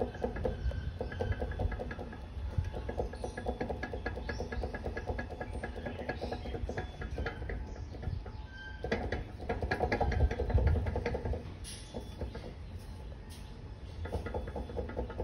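Worn front bearing of a Royal Enfield motorcycle clicking and grating in rapid runs as the front end is worked left and right by hand, in several bursts with short pauses between; the sound is the sign that the bearing has gone bad.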